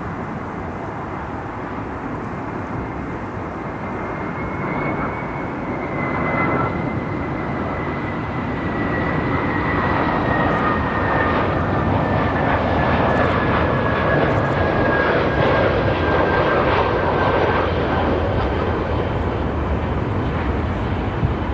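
Jet airliner's engines passing, the noise growing louder over the first half and then holding, with a high whine that slowly falls in pitch.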